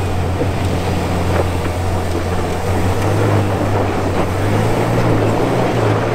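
Jeep engine running hard under load on a steep loose-dirt hill climb, throttle held on with a slight rise in pitch midway, over the noise of tyres churning dirt.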